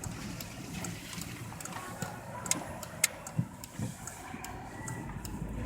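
Car cabin noise: a low engine and road rumble, with scattered sharp clicks and a few soft knocks.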